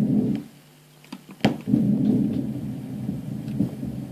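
Lung breath sounds, low and rushing as heard on auscultation, given as the example of intrapulmonary consolidation. A short breath comes at the start, then after a sharp click a longer, steady breath runs from about a second and a half in.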